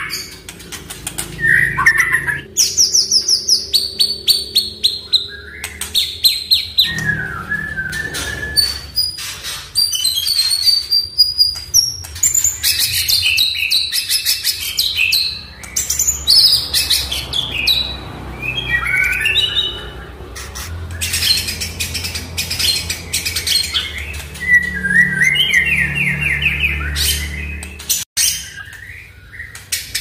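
White-rumped shama (murai batu) singing a long, varied song: clear whistled phrases and slides mixed with fast rattling runs of repeated clicking notes.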